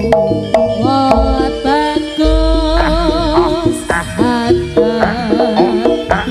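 Jaranan dance music: hand drums beating a steady pattern under a sliding, wavering melody line, with deep low thuds.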